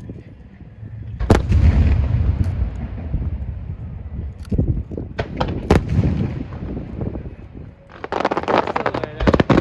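Aerial fireworks going off: one heavy boom about a second in with a long rumbling echo, a few sharp single bangs in the middle, then a fast run of crackling reports near the end.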